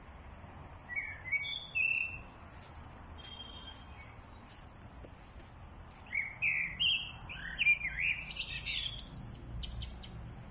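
Small birds chirping: a few short notes about a second in, then a busier run of chirps from about six to nine seconds in.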